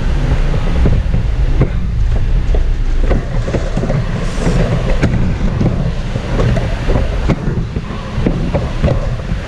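Cabin noise of a moving transit bus: a steady low engine and road rumble with frequent small rattles and knocks.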